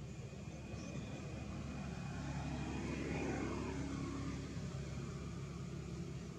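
A motor passing by: a steady low hum that swells to its loudest a little past halfway and then fades, its pitch dropping as it goes.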